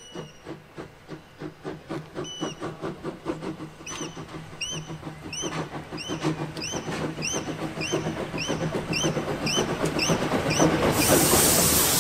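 Bavarian GtL 4/4 (class 98.8) steam tank locomotive 98 886 chuffing steadily as it approaches, the beats growing louder and slightly quicker, with a rhythmic squeak in time with them. Near the end a loud hiss of steam takes over as the engine passes close.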